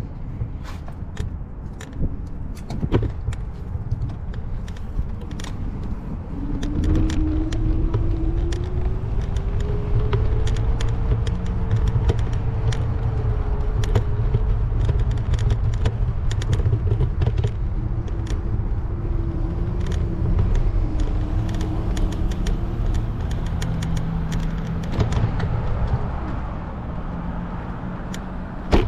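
Outdoor ambience dominated by low wind rumble and handling noise on a moving camera, with many small clicks and rattles. A droning tone rises about six seconds in, holds, and fades out near the end.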